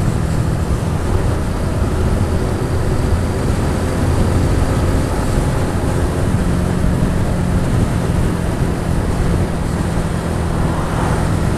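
Honda Pop 110i's single-cylinder four-stroke engine running steadily while riding, with wind noise on the microphone.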